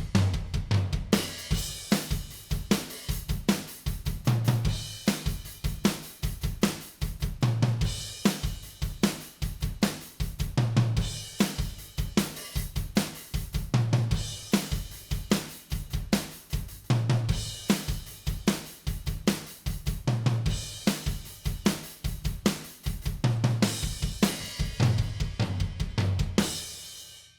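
Multitrack drum kit playing back a rock groove, with Slate Trigger samples layered onto the recorded drums: kick, snare, hi-hat and cymbals, with heavy low tom or kick hits recurring about every three seconds. It cuts off abruptly at the end.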